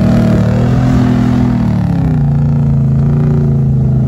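SUV engine working hard under load as it tows a boat trailer up soft beach sand. The revs sit high, drop a step about two seconds in, then hold steady.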